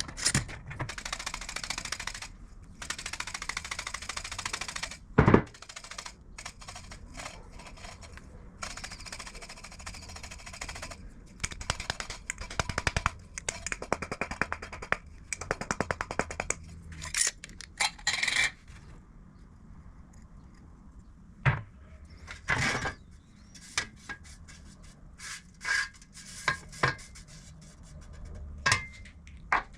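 Irregular metal clinks and knocks from tools and small steel parts being handled, with several stretches of rasping, scraping noise a second or two long.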